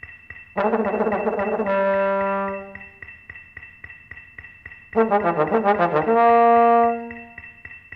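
Bass trombone double-tonguing: a rapid run of tongued notes on one pitch that ends in a held note, then after a pause a second fast run that steps down in pitch, moving the slide across partials, and again ends in a held note. A faint steady click keeps the beat underneath at 220 BPM.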